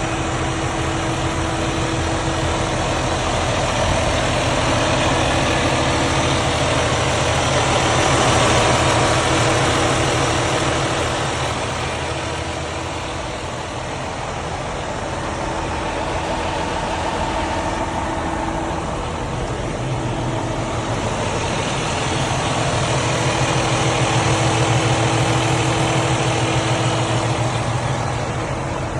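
Detroit Diesel DD16 inline-six diesel truck engine running, a steady rumble that swells louder twice, about a third of the way in and again near the end.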